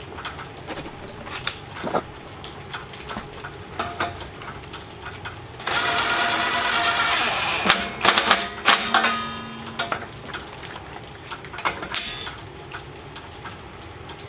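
Cordless DeWalt drill-driver with a socket running steadily for about two seconds, spinning a nut on a bolt of the steel grill guard. Before and after come light clinks and taps of metal hardware being handled, with a cluster of sharp clicks just after the drill stops.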